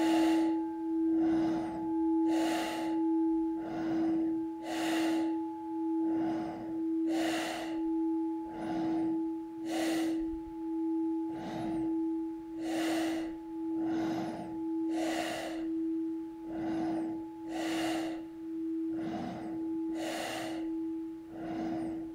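Fast, forceful breathing in and out through the nose, one breath sound about every second, as in an intensive nasal-breathing exercise. Under it a steady singing-bowl tone holds without a break.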